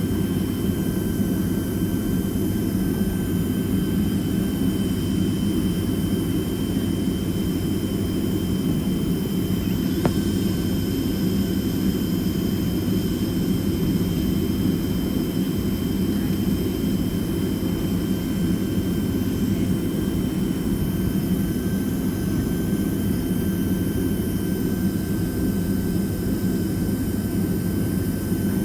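Boeing 767-300ER's twin jet engines running at a steady setting, heard inside the passenger cabin as a constant low rumble with a thin steady whine above it. There is a single faint click about ten seconds in.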